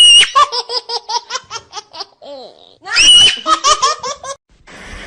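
High-pitched human laughter in two bouts, each starting with a held shriek and breaking into quick staccato laughs, about eight a second. Near the end a steady hiss takes over.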